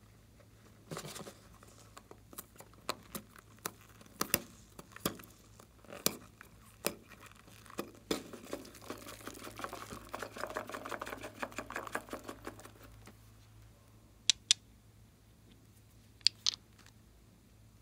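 Hands handling small plastic toys over a tray of slime and foam beads: scattered taps and clicks, then a few seconds of dense crackling rustle in the middle. Near the end come two sharp separate clicks as a small glitter pot is handled.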